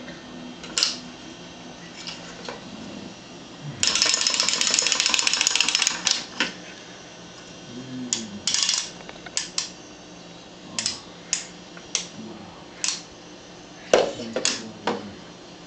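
Clockwork of a small plastic wind-up toy bird running as a rapid clicking buzz for about two seconds, a few seconds in. After it, scattered sharp clicks and knocks as the toy is handled and set on a wooden desk.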